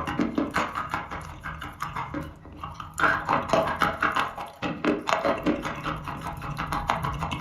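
Chalk being bitten and chewed close to the microphone, a dense run of dry crunching crackles.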